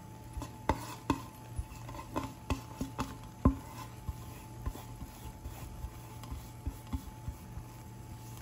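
A white spatula and a bowl knocking and scraping against a cooking pan as grated coconut is tipped into vermicelli upma and stirred in: a quick run of taps and clicks, loudest about three and a half seconds in, thinning to scattered taps after that.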